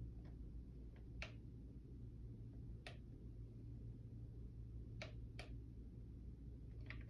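Several faint, sharp clicks at uneven intervals over a low steady hum: the buttons and slide switches of a radio-controlled analog alarm clock being worked while it is set.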